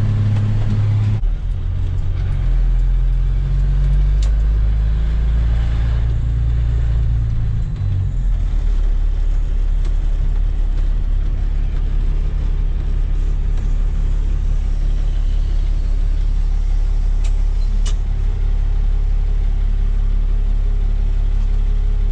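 Plow truck's engine heard from inside the cab. Its note drops in several steps over the first eight seconds as the truck slows, then holds a steady low idle.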